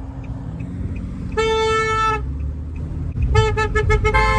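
Car horn honking over steady road rumble: one long honk about a second and a half in, then a quick run of short honks and another long honk near the end.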